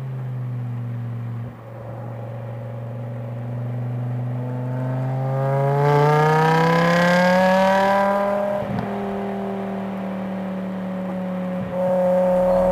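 BMW M5 E60's V10 engine heard through the exhaust from a microphone at the boot. The note falls as the car eases off, then rises steadily as it accelerates hard, then holds a steady pitch near the end.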